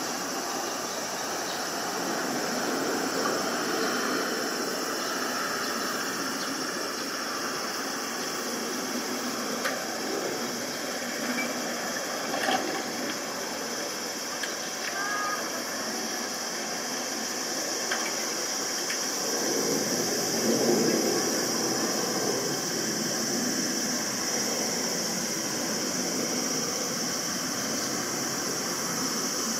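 Distant turbofan engines of an Embraer E-Jet airliner climbing away after takeoff, heard as a steady rushing noise that swells about twenty seconds in.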